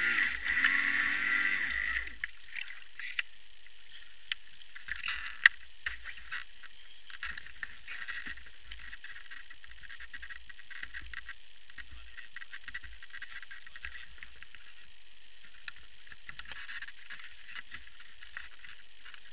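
Traxxas Spartan RC boat's brushless motor whining at speed, then dropping in pitch and cutting out about two seconds in. Afterwards the hull drifts with water lapping and sloshing against it and scattered small knocks, one sharper click about five seconds in.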